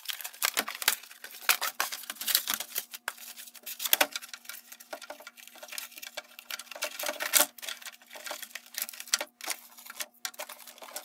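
Toy packaging being opened by hand: cardboard and plastic rustling and crackling, with irregular clicks and taps as the parts are worked free of their ties. A faint steady hum runs underneath.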